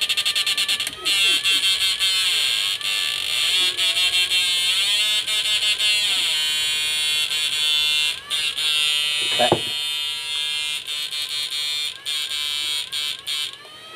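Electronic buzzing tone from a small sound-generator circuit through a speaker. It pulses rapidly at first, then about a second in starts sliding up and down in pitch over and over, like a warbling alarm or buzzer.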